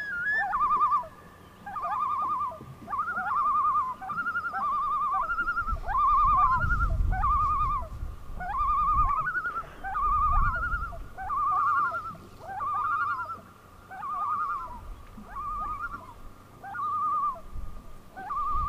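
Common loon calling: a quavering, wavering call repeated about once a second, each phrase a short upward note followed by a warbled one.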